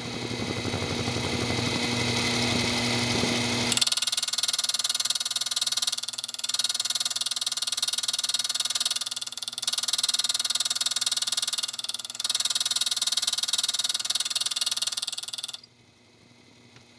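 Machine tool cutting metal, clearing out the waste between two tabs of a ratchet part. A motor hum runs for the first few seconds, then from about four seconds in a high, steady cutting whine sets in, dipping briefly three times, and it cuts off suddenly near the end.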